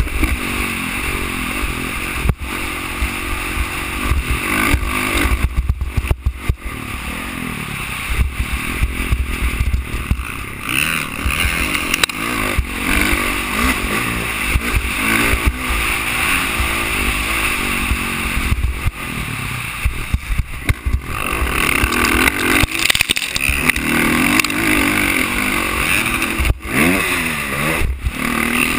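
Dirt bike engine revving up and down as it is ridden hard, heard from a helmet-mounted camera, with a steady rushing noise throughout. The engine note drops out briefly a few times, most clearly about six seconds in and near the end.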